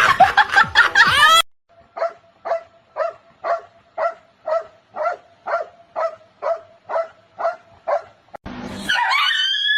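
A dog barking in a steady, even series of short barks, about two a second, after a loud, busy opening second. Near the end it breaks into a long howl that falls in pitch.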